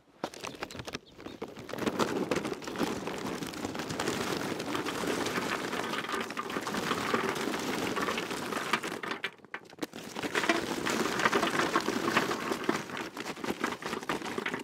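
Charcoal briquettes pouring from a bag into a gravity-fed smoker's metal charcoal chute: a dense, continuous rattle of briquettes tumbling in, with a short break a little past halfway before the pour resumes.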